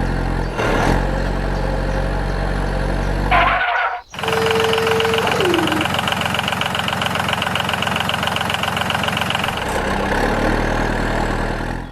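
Vehicle engine running steadily. About four seconds in it cuts to another engine running with a fast, even chugging, which goes on to the end.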